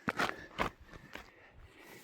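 Footsteps of a hiker's boots crunching on packed snow, three firm steps about half a second apart, then softer ones.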